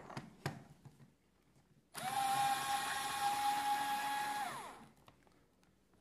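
Bosch cordless electric screwdriver running for about two and a half seconds as it backs out a screw. The motor whine holds steady, then falls in pitch as the motor stops.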